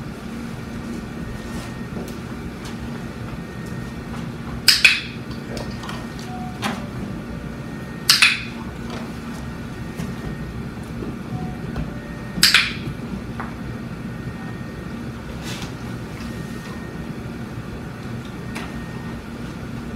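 Steady low hum of a room's ventilation, broken three times by a short, sharp sound, each about four seconds after the last.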